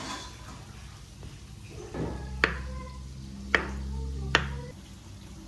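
Chef's knife chopping avocado on a wooden cutting board: three sharp knocks of the blade hitting the board, about a second apart.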